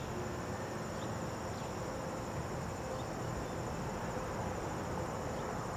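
Steady high-pitched buzzing of insects over a low, even rumble, with a few faint short chirps.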